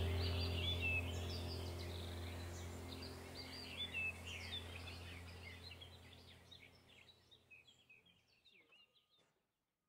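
Small birds chirping and singing over a steady low hum, the whole sound fading away to silence over the last few seconds.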